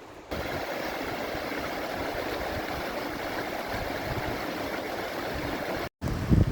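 Steady rushing water noise that starts abruptly, drops out for a moment near the end, and is followed by a low thump.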